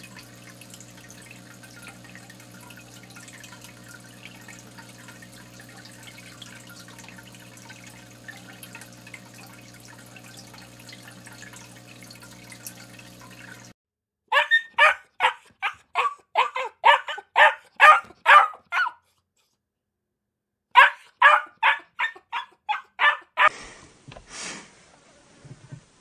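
Puppies yapping in two quick runs of high, sharp barks about two a second, starting about halfway through with a short pause between the runs. Before them, a faint aquarium hum of an air pump or filter with light bubbling water.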